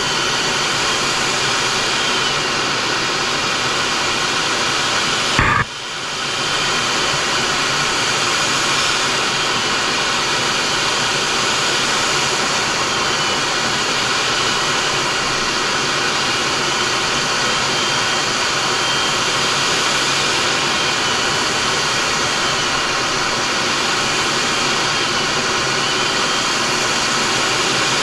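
Steady noise of a MiG-29's twin Klimov RD-33 turbofans and the airflow over the canopy, heard inside the cockpit in flight. About five seconds in there is a sharp click, and the noise drops for a moment before coming back.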